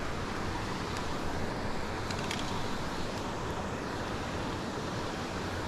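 Steady rushing outdoor background noise, with a few faint small clicks about two seconds in.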